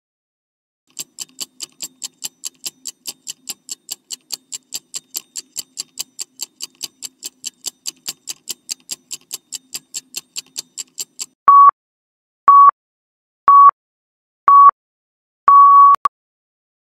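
Quiz countdown-timer sound effect: fast clock ticking, about four ticks a second, then five loud beeps a second apart, the last one longer, marking the final seconds of the countdown.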